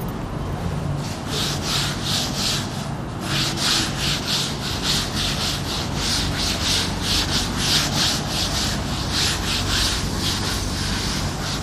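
A cloth being rubbed back and forth across a chalkboard to wipe it clean, in repeated scrubbing strokes about two or three a second, starting about a second in.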